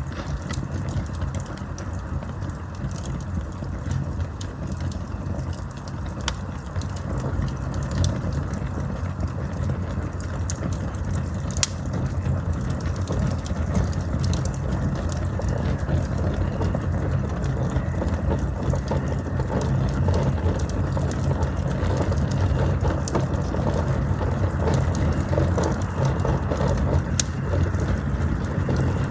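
Campfire burning: a steady low rumble of flames with scattered crackles and pops, one sharper pop about twelve seconds in.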